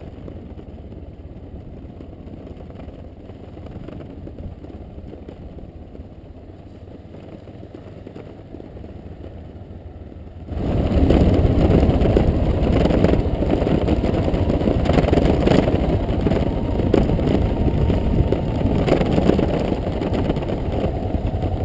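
Trail motorcycle being ridden on a dirt track, heard from a helmet-mounted camera: engine running under wind rumble on the microphone. About ten seconds in, the sound jumps suddenly much louder into heavy wind buffeting and engine noise.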